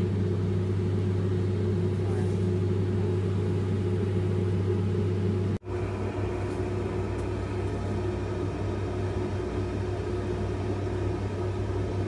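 Steady drone of machinery on a cement carrier's deck during cargo loading: a low hum with a fainter steady tone above it. The sound cuts off abruptly about five and a half seconds in, and a similar steady machinery noise with less of the low hum follows.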